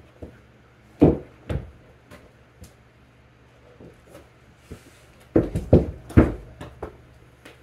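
Heavy thumps and knocks from objects being handled and set down: two about a second in, then a quick run of several more a little past the five-second mark.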